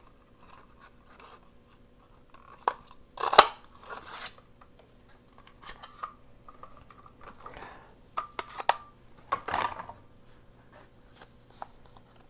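Large lever-action craft circle punch clunking down through cardstock with one sharp snap about three seconds in. Scattered clicks and paper rustling follow as the card and the punched-out circle are handled.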